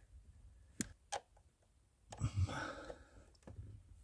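Two light, sharp clicks about a second in, then a short rustle and a few faint ticks: hand tools knocking against the bonnet-release cable fitting and plastic trim under the dashboard.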